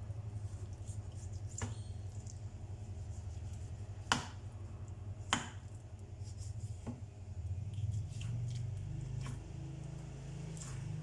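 Large kitchen knife cutting raw chicken breast meat away from the bone on a wooden cutting board, with soft squishy slicing and four sharp knocks of the blade; the two in the middle are the loudest. A steady low hum runs underneath.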